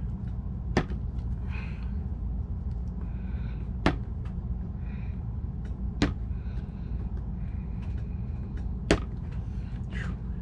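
Small parts being handled and rummaged through: four sharp clicks a few seconds apart, with soft rustling between them, over a steady low hum.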